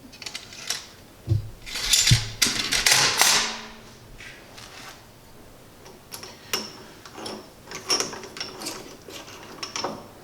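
Metal tools and parts being handled in the shop: a string of clinks, clicks and knocks, with heavier knocks in the first few seconds and lighter scattered ticks after that. No drill is running.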